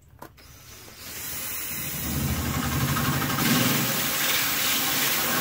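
Cordless drill spinning a hole saw in reverse against the fiberglass deck, scoring the surface before cutting forward. A steady grinding hiss over the motor's hum, starting about a second in and building up over the next second.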